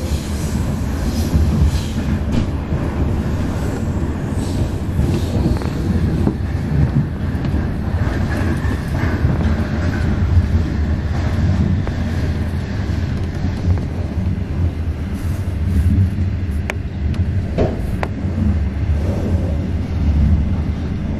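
Steady low rumble of a 25G passenger coach running along the track, heard from inside the carriage. A few sharp clicks come about three-quarters of the way through.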